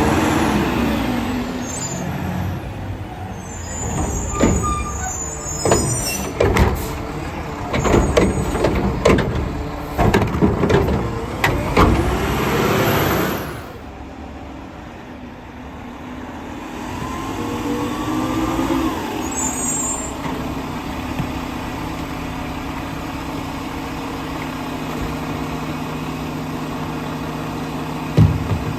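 Mack LR garbage truck with a McNeilus Meridian front-loader body working a pickup: the diesel engine runs under load while a long run of sharp metal clanks and bangs sounds over roughly the first half. It then goes quieter, the engine rises again, and it settles to a steady run, with one sharp knock near the end.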